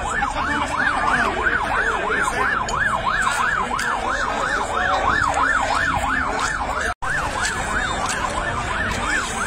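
Emergency-vehicle siren in a fast yelp, its pitch sweeping up and down about three times a second, over steady low background noise. It cuts out for an instant about seven seconds in.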